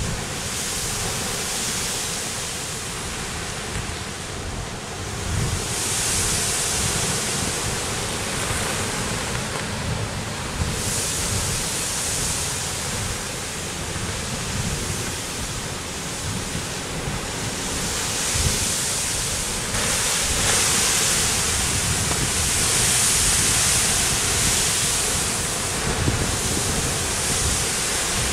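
Kilauea's lava ocean entry: a continuous roar of surf and hissing steam, with wind on the microphone. The hiss swells and eases every few seconds.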